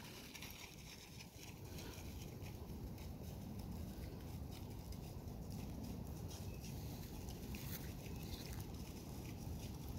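Wind buffeting the phone's microphone as a steady low rumble, with light rustling of footsteps through dry leaves and grass.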